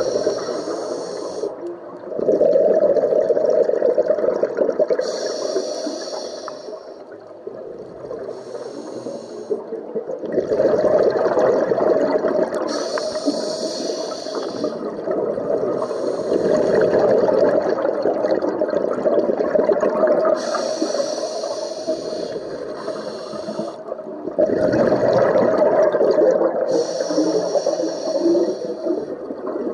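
Scuba diver's regulator breathing recorded underwater: short hissing inhalations alternate every few seconds with long, rough, rushing bursts of exhaled bubbles.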